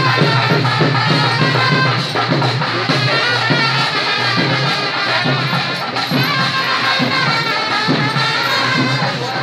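Music with repeated drum strokes under a wavering melody line.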